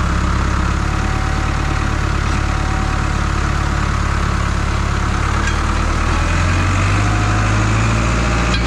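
International tractor's diesel engine running steadily at low revs, its note lifting slightly about six seconds in while the front loader sets down a log box and the tractor backs away.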